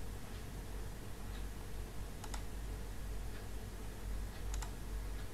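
A few faint clicks at a computer, in pairs about two seconds in and again about four and a half seconds in, over a steady low hum of room noise and microphone hiss.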